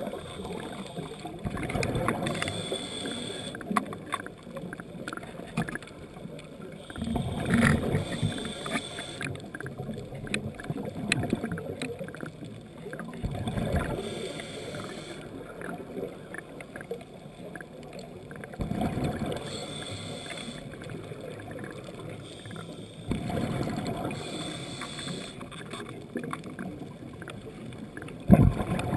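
Scuba diver breathing through a regulator underwater: rumbling bursts of exhaled bubbles about every five seconds, with a hissing inhale between them.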